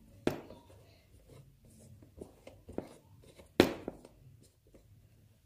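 Small plastic mini tripod being handled and its head adjusted: a few short clicks and knocks, the loudest about two thirds of the way through, with faint rubbing between them.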